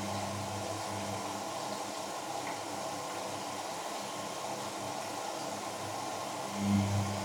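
Samsung P1271 washing machine running through its wash: a steady hiss with a low motor hum, which fades after the start and comes back louder for a moment near the end.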